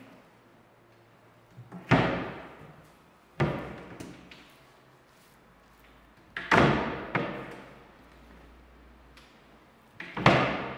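Cabinet doors of a TV unit being shut, four thumps a few seconds apart, each dying away over about a second.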